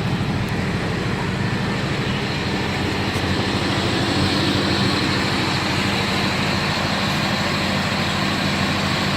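Chrysler 440 V8 in a 1954 Dodge Royale idling steadily.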